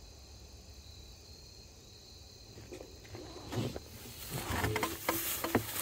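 Faint steady chirring of crickets, then from about three and a half seconds in, rustling and a quick run of clicks and knocks as a trail camera is handled and strapped in place.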